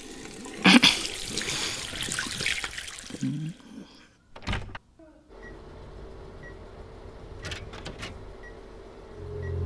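A loud rushing noise for about three seconds, then a single thump. After it come a steady low hum with faint, evenly spaced high beeps and a few quick clicks.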